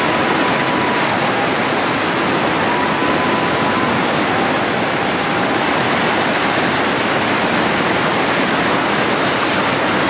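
Grade 4 whitewater river rapid rushing and churning, a loud, steady rush of water.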